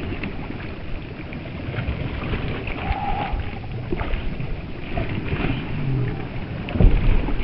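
Sea water rushing and sloshing against a 12-foot kayak's hull as it rides ocean waves, with a heavy low thump near the end.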